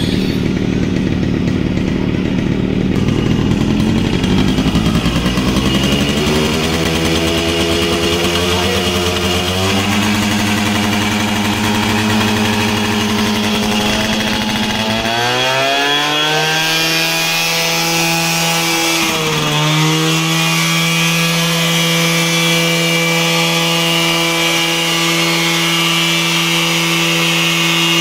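Yamaha RX 100's 98 cc air-cooled two-stroke single-cylinder engine running and being revved. The pitch climbs slowly over the first several seconds, holds, then rises sharply about halfway through. After a brief dip a few seconds later it stays at a high, steady rev.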